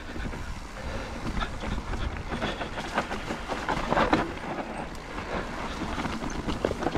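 Mountain bike rolling fast over a rough dirt trail: tyre rumble with irregular knocks and rattles from the bike as it hits rocks and roots.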